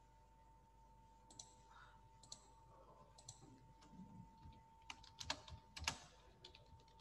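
Faint, scattered key clicks of typing on a computer keyboard, a few louder taps near the end, over a faint steady electrical tone.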